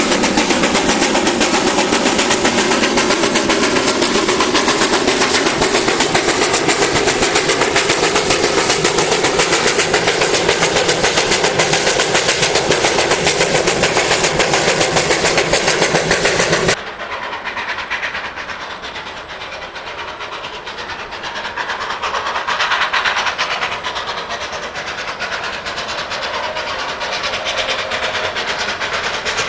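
Steam locomotive running close by, heard from a car pacing it: a loud, steady rushing noise with a fast, even rattle. About two-thirds of the way through it cuts off suddenly to a quieter, more distant train coming along the line.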